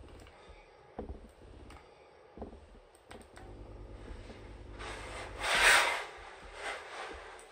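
Steam generator iron being slid over fabric on a padded ironing board, with a few light knocks and a louder hissing rush about five and a half seconds in.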